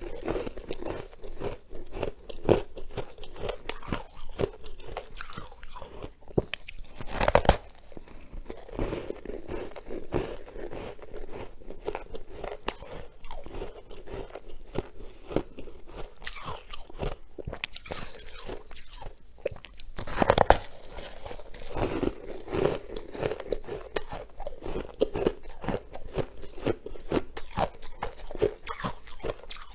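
Freezer frost being bitten and chewed close to the microphone: continuous crackly crunching, with two louder crunches, about seven and twenty seconds in.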